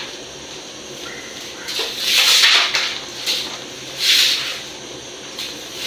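Three rasping, scraping strokes, each lasting about half a second to a second, with quieter gaps between them.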